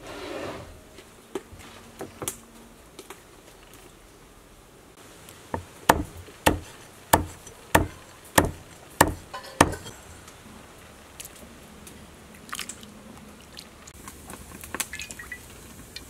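Kitchen knife chopping chicken ovaries on a round wooden chopping block: a run of about seven sharp knocks, a little over half a second apart, starting about five seconds in.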